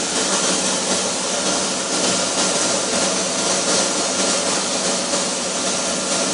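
Boat engine running steadily, a continuous drone with a hiss over it.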